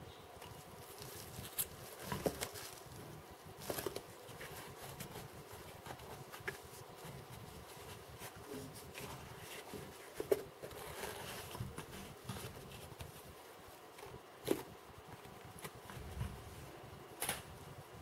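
Quiet handling noises: cotton fabric rustling under the fingers and a few light taps and clicks as foam and fabric craft pieces are pressed together and set down.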